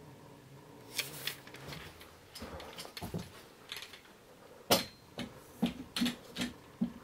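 A run of about ten sharp clicks and knocks, starting about a second in, scattered at first and then coming roughly every half second near the end, the loudest about two-thirds of the way through.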